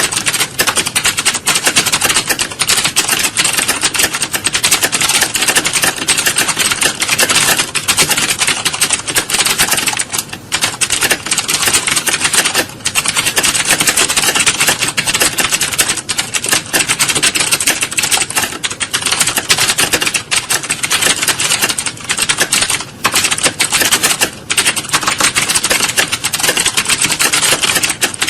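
Dense, fast clatter of many computer keyboards being typed on at once, the keystrokes overlapping into a continuous rattle with a few brief lulls, as in an exam hall during a typing test.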